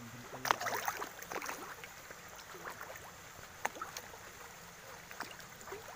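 Small splashes and plops at a water surface as fish move and break the surface. A cluster of splashes comes in the first second and a half, the sharpest about half a second in, and a few single plops follow later.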